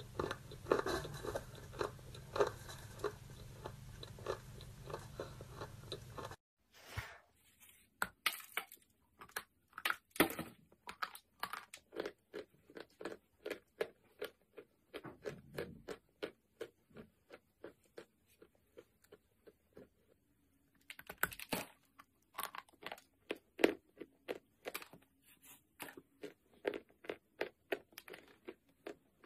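Close-up crunching and chewing of white slate, a chalky mineral bar: crisp bites followed by fast, rhythmic crunches. For the first six seconds or so a steady low hum runs under the chewing; after that the crunches stand out on a quiet background.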